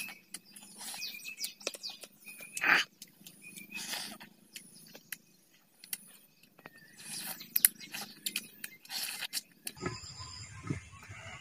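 A person eating mutton head curry with his hands: close wet chewing and lip smacks with many small clicks, broken by four short breathy rushes of air.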